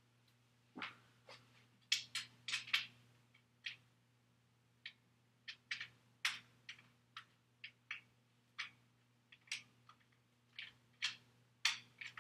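Wing nut being screwed by hand onto the threaded top of a backdrop stand: a run of short, irregular metal clicks and scrapes, over a faint steady low hum.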